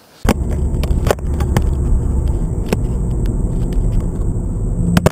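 Car engine and road noise heard inside the cabin while driving, a steady low rumble that begins about a quarter second in. Several sharp clicks sound over it.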